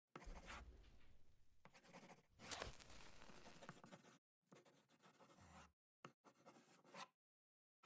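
Faint pen scratching on paper in a run of strokes with short pauses, with a louder scrape about two and a half seconds in.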